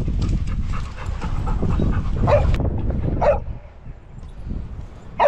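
A dog whining impatiently in three short calls, about two, three and five seconds in, over a steady low rumble.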